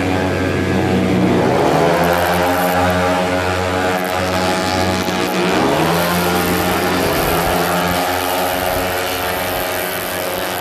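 Several racing 115cc automatic scooters with single-cylinder four-stroke engines running at high revs together, a loud, steady multi-engine drone. The pitch rises about a second in and again around six seconds in as they accelerate.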